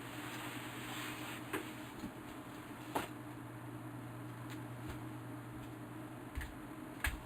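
A few sharp clicks and light knocks, scattered a second or more apart, over a steady low hum.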